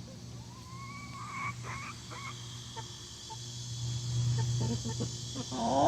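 Backyard chicken making odd calls: a drawn-out note that rises in pitch about a second in, a few short chirps after it, then a louder, harsher call near the end. A steady low hum runs underneath.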